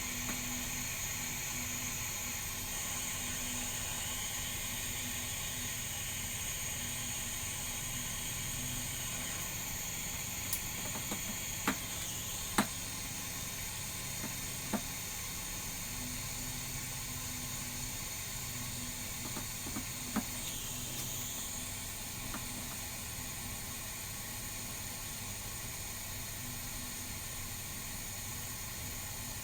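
Torch flame hissing steadily while heating a joint in copper pipe, with a few small clicks and knocks from the fittings partway through.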